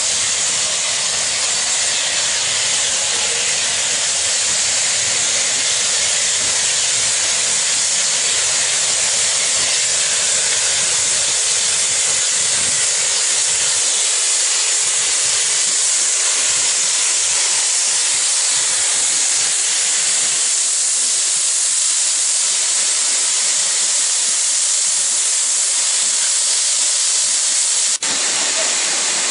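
Steam hissing loudly and steadily from standing steam locomotives: Caledonian 0-6-0 No. 828 and Jinty 3F 0-6-0 No. 47406. The hiss dips briefly near the end.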